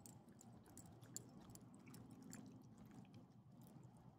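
Small dogs chewing and licking food from a person's hand: faint, irregular smacking clicks.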